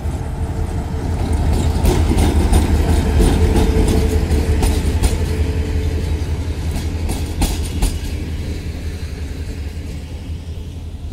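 Romanian Class 64 diesel locomotive hauling a passenger train past at low speed. Its engine rumble is loudest about two seconds in, and a steady whine fades out around six seconds. Then the coach wheels clack over rail joints and the sound slowly dies away.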